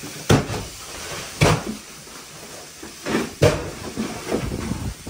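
Hard knocks and clunks of lids, drawers and bins being opened, shut and rummaged through in a small cabin, about four loud ones a second or two apart.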